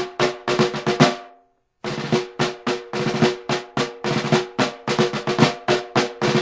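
Military snare drum playing a marching cadence of quick, evenly spaced strokes. The drumming stops abruptly a little after one second in, goes silent for about half a second, then starts again.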